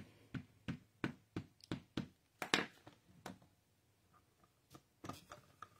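Ink pad tapped repeatedly onto a rubber stamp to ink it: about ten light, uneven taps over the first three seconds, then a few softer clicks near the end.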